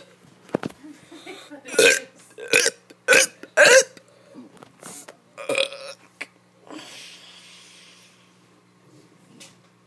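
A kid burping on purpose: a quick run of four short, loud burps about half a second apart, then a softer fifth burp a couple of seconds later.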